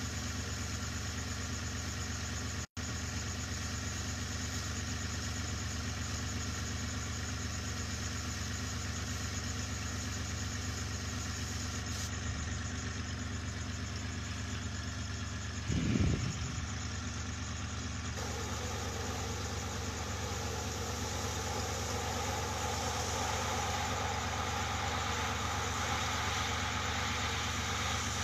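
Airbrush air compressor running steadily with the hiss of air through the airbrush, which grows louder from about 18 seconds in. A brief low thump sounds about 16 seconds in.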